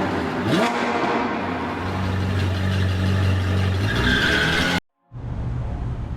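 Car engine sound effect mixed with music: the pitch rises as the engine revs about half a second in, then holds a steady drone. It cuts off abruptly to silence shortly before the end, and music starts right after.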